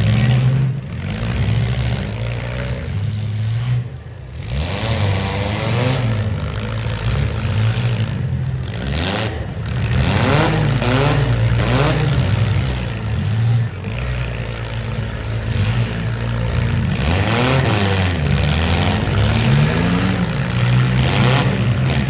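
Several demolition-derby car engines revving up and down as the cars rev and manoeuvre in the arena.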